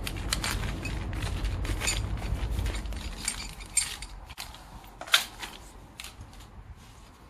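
Spare motorcycle brake and clutch levers clinking and clacking as they are handled in and taken out of a plastic bag and set down among metal tools, with the bag rustling. One sharp metal clack about five seconds in is the loudest.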